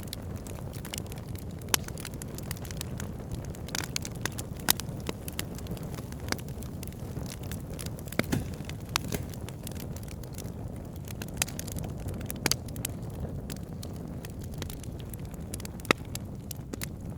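Campfire crackling: irregular sharp pops and snaps, a handful louder than the rest, over a steady low rumble of the burning fire.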